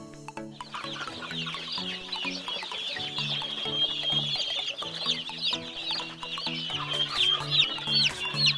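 A crowd of day-old kroiler chicks peeping, many short high-pitched cheeps overlapping continuously, starting about half a second in.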